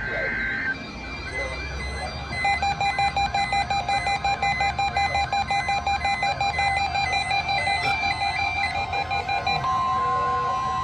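NOAA Weather Radio Emergency Alert System test signal: a short buzzing data burst ends just after the start, then a rapidly pulsing electronic alert tone for about seven seconds, then a steady single-pitch warning alarm tone starts near the end.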